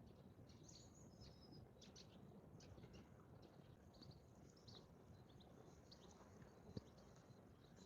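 Faint outdoor ambience with birds chirping: scattered short, high chirps over a low, steady background noise, and one soft tap near the end.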